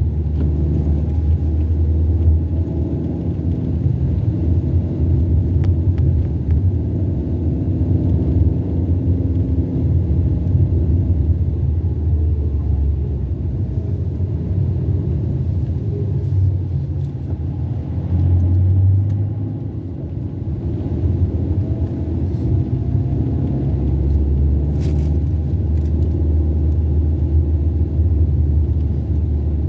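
Car driving, a steady low rumble of engine and road noise that eases for a few seconds about two-thirds of the way through.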